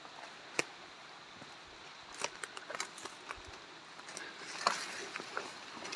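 Footsteps on dry leaf litter and twigs: scattered sharp crackles and snaps, in small clusters about two seconds in and again near five seconds in.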